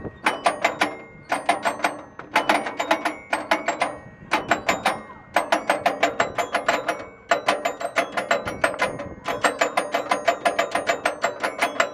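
Playground musical panel played by pressing its row of note-lettered levers: quick runs of struck, ringing notes, several a second, in phrases broken by short pauses.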